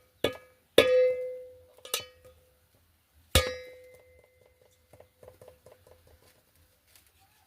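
Metal pots and utensils clanking: four sharp strikes, each leaving a ringing tone. The loudest come about a second in and again about three and a half seconds in. Lighter clinks follow.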